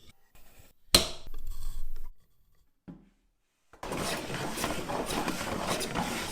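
A sharp knock about a second in and a short scrape, then, after a pause, a steady rough scraping that starts near the end: a hand plane iron being handled and rubbed on a sharpening surface.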